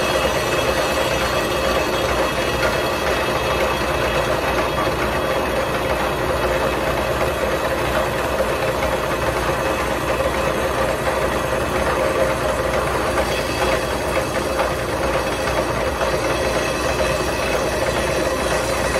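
Milling machine running steadily, its cutter taking a planing pass across the mating surface of an exhaust manifold, with a constant hum and a steady mid-pitched tone.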